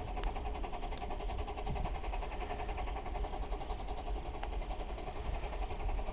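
Oil-fired 15-inch gauge miniature steam locomotive running, its exhaust beating in a fast, even rhythm over a low rumble.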